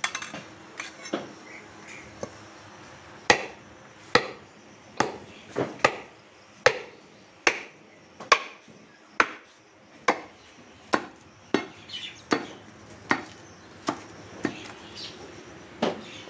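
A heavy butcher's blade chopping beef on a wooden chopping block. A few light knocks, then from about three seconds in a steady run of sharp strikes, a little over one a second.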